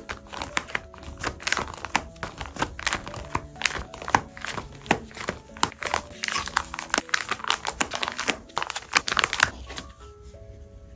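Clear plastic pocket pages of a trading-card binder crinkling and crackling as they are flipped and handled, a dense run of crackles that stops about a second before the end.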